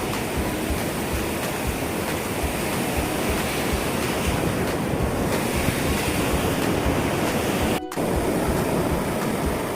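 Ocean surf breaking and washing up the beach, with wind buffeting the microphone. The sound cuts out for a split second near the end.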